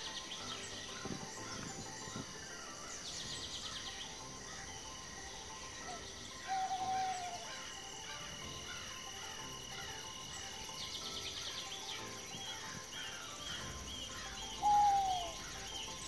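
Rural outdoor ambience of birds calling over a steady high insect drone, with bursts of rapid trilling and a run of short falling chirps near the end. The loudest sounds are two clear falling whistles, one about six seconds in and one near the end.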